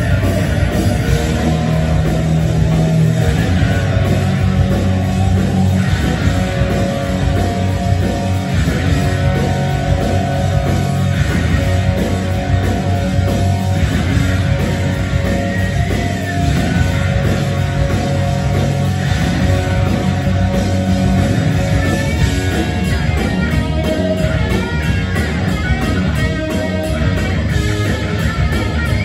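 Live hard rock band playing loud: distorted electric guitars over bass and drums, an instrumental passage with no singing.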